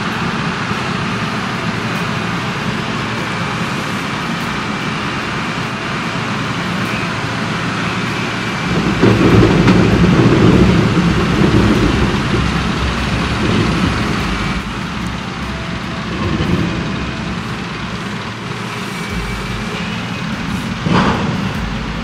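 Oxbo 9630 sweet corn harvester and the truck beside it running as corn is picked and unloaded: a steady, dense machinery noise that grows louder for about three seconds around nine seconds in, with a short knock near the end.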